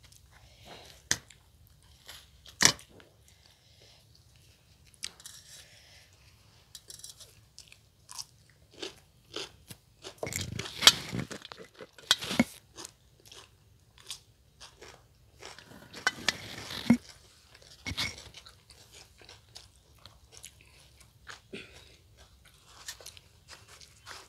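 Two people eating: soft chewing with sharp crunchy bites of raw cucumber slices and puri. The loudest crunches come in two clusters, about halfway through and again a few seconds later.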